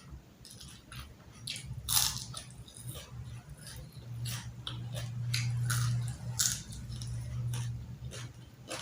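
Close-up eating sounds: a person biting and chewing crunchy food with a run of sharp crunches. A low steady hum rises under it about four seconds in and fades near the end.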